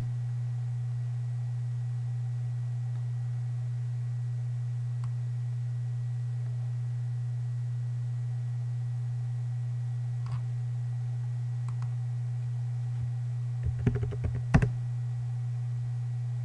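A steady low hum, with computer-keyboard keystrokes: a single one about ten seconds in and a quick run of several near the end, typing a short word and Enter.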